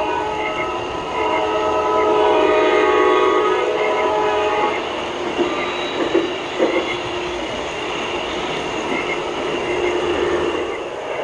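Lionel O-gauge Acela model train passing close by, its onboard sound system sounding the horn as a steady chord for the first few seconds. Then come rattling clicks of the wheels over the track as the cars roll past.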